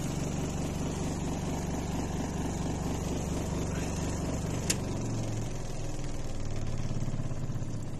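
Semi-automatic washing machine's spin motor running with a steady low hum, with one sharp click about five seconds in.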